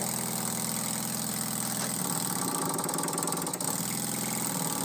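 Small brass double-acting oscillating model steam engine with a 10 mm bore, running on compressed air with a steady, rapid exhaust beat. About halfway through the beat changes as the engine is loaded by hand.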